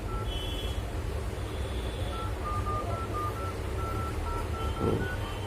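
Poco X3 smartphone loudspeaker playing dial-pad keypad tones as digits are tapped on the emergency-call screen: a quick run of short beeps starting about two seconds in. The tones come through, showing the phone's speaker working again after the repair.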